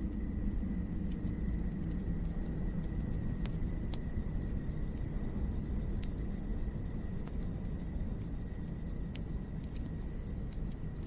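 Wood fire crackling, with scattered sharp pops over a steady low rumble, joined by a steady high-pitched hiss.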